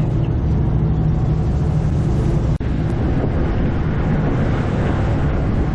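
Charter fishing boat's engine running with a steady low hum under a constant rushing noise; the sound drops out for an instant about two and a half seconds in.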